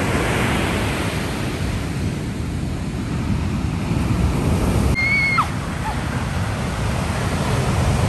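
Ocean surf breaking and washing up the beach, a steady rush throughout. About five seconds in, a brief high call with a short falling squeak sounds over it.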